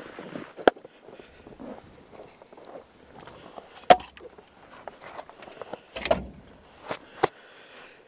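Split firewood pieces knocking against each other and the steel firebox as they are loaded into a Central Boiler Classic Edge 350 outdoor wood boiler. There are several sharp wooden knocks, the loudest about a second in and about four seconds in, with a quicker few near the end.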